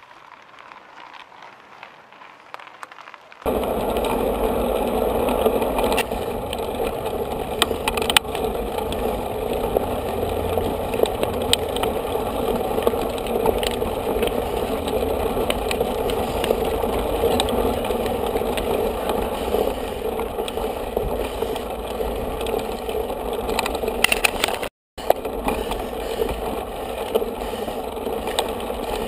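Mountain bikes on a gravel track: a steady crunch of tyres and shoes on gravel, with the bikes' rattles, clicks and scrapes. It starts suddenly about three seconds in after a quieter stretch, and cuts out for a moment near the end.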